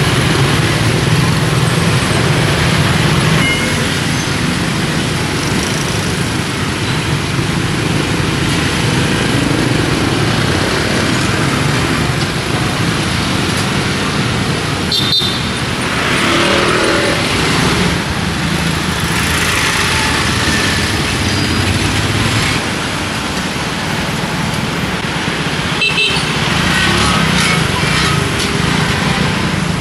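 Steady street traffic of motorbikes and cars passing, a continuous engine hum and road noise, with a sharp knock twice, about fifteen and twenty-six seconds in.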